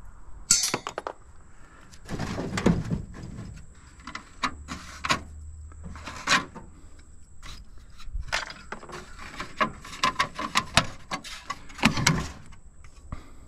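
Irregular knocks and metallic clanks of hand tools working on a scrap air conditioner unit as it is taken apart, a dozen or more strikes at uneven intervals, some loud and sharp.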